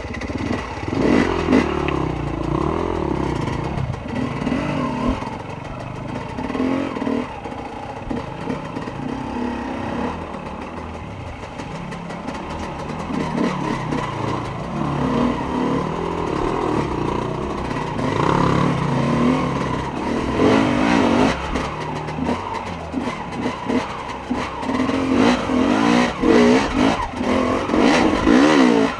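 Enduro dirt bike engine revving up and down in short bursts as it is ridden slowly over rocks, with knocks and clatter from the bike over the rough ground.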